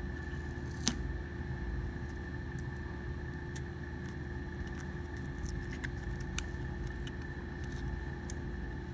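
Scattered light clicks and taps of hands handling a pistol frame and a grip panel being aligned and pressed on, the sharpest about a second in, over a steady electrical-sounding hum with a constant high tone.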